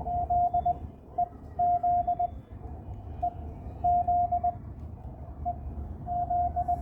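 Morse code from an amateur radio receiver: a single steady mid-pitched tone keyed into groups of short and long beeps, here a station sending its callsign, with a low rumble underneath.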